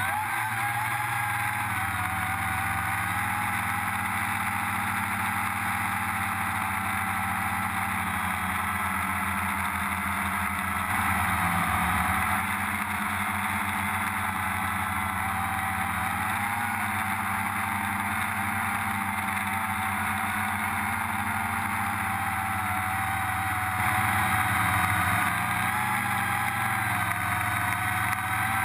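Multirotor drone motors and propellers heard from the drone's own camera: a steady, wavering whine over a buzzing hum. It grows louder briefly about 11 seconds in and again around 24 seconds in.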